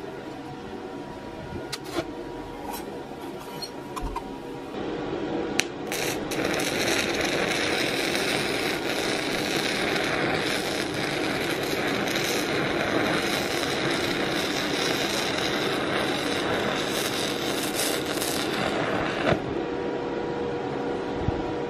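Carbon arc welding with the graphite rod taken from inside a large battery, held in a stick-welding electrode holder on sheet metal. After a few sharp clicks, the arc catches about five seconds in and burns with a steady crackling hiss for about fourteen seconds, then cuts off near the end. The thicker rod keeps the arc going without getting red hot, laying a TIG-like bead without argon.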